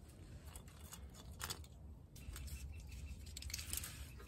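Faint clicks and rustling of hands working car wiring and connectors, preparing broken wires for splicing.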